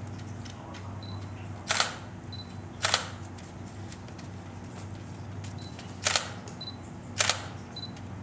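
Still camera taking four shots: each time a short, high autofocus beep is followed about half a second later by the shutter firing with a quick double clack. A fifth beep comes near the end.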